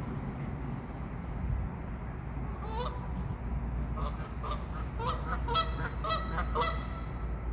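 Geese honking: one call about three seconds in, then a run of several louder honks over the next few seconds.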